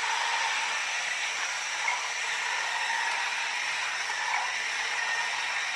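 Haynes clear-plastic model four-cylinder engine kit running on its small electric motor, a steady whirring hiss with a faint steady whine.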